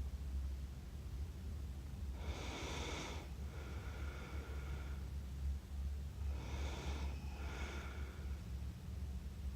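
A sleeping person snoring, two breaths a few seconds apart, each a rough noisy snore that gives way to a thinner, higher, steadier note.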